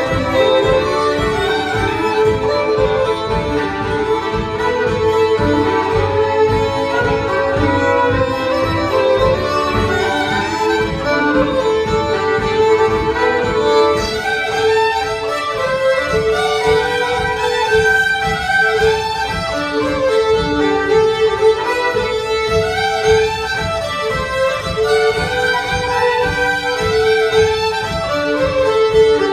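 Four fiddles bowing an old-time fiddle tune together in unison, with a drone on one note that keeps sounding under the melody.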